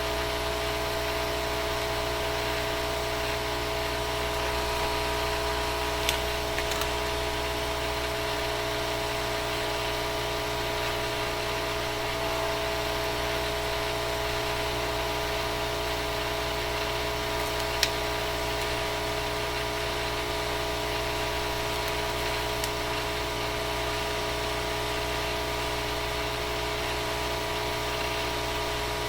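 Steady machine hum made of several fixed tones, unchanged throughout, with a few sharp clicks about six seconds in and again about eighteen seconds in.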